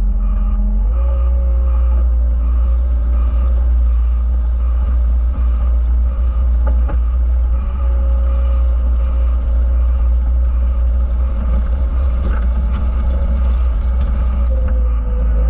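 Skid steer loader's engine running steadily while it drags a land plane over a gravel driveway, with a deep constant drone and a few faint knocks. The sound cuts off suddenly at the end.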